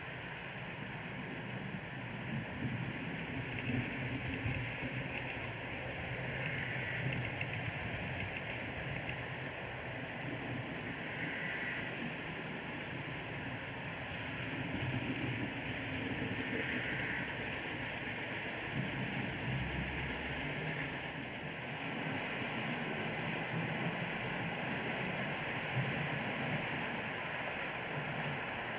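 Model trains running along the layout's track: a steady, noisy rumble of wheels and motors that rises and falls slightly as trains pass.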